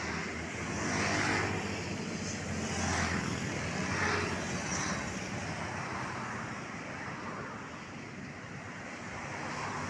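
Light road traffic: motorcycles and cars passing one at a time, engine and tyre noise swelling and fading as each goes by. The loudest passes come about a second in and again around three to four seconds.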